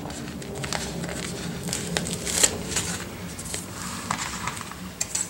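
Paper sticker sheet rustling and crinkling as it is handled, with small sharp clicks and snips as scissors cut a piece of flower sticker from it. The loudest click comes about two and a half seconds in.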